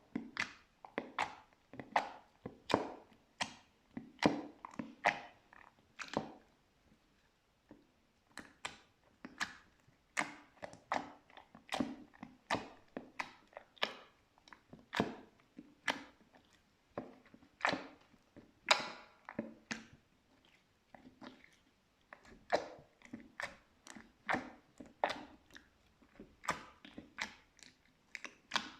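Slime being squished and pressed by hand, making a run of short wet clicks and pops, about one or two a second, pausing briefly about six seconds in and again about twenty seconds in.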